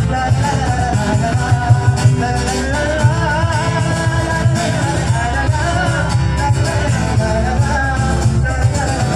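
Music: the instrumental interlude of a Hindi film song, a wavering lead melody over a steady beat and pulsing bass.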